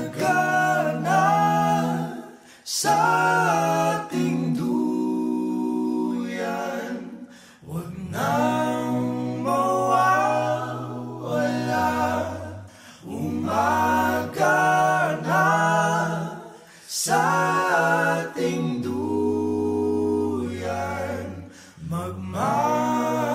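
A vocal group singing a cappella in layered harmony over long held low bass notes, in phrases broken by short pauses every few seconds.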